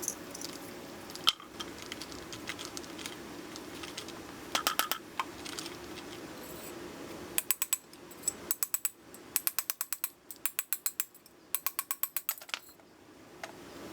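Hand tools working on the vise's metal parts: scattered single clicks and clinks, then several short runs of rapid, evenly spaced metallic clicks in the second half, over a low steady hum that fades about halfway through.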